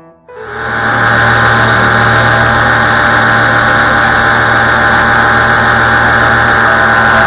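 Paramotor engine and propeller running steadily in cruise flight, a constant drone that fades in over the first second.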